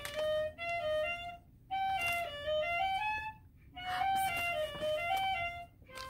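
A single instrument playing a slow melody in high notes, note by note, in three short phrases with brief pauses between them.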